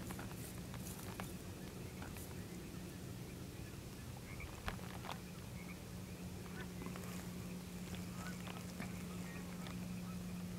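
Outdoor ambience: a steady low hum with scattered faint ticks, and one sharp click a little before halfway through.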